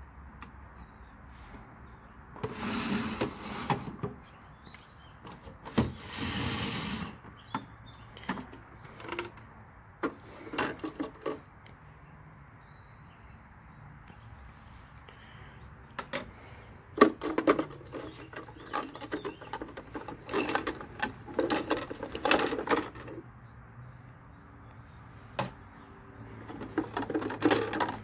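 Plastic toy washing machine and dishwasher being handled: irregular clicks, knocks and rattles of plastic parts and doors, with two short rushing noises in the first seven seconds and a dense run of clatter in the second half.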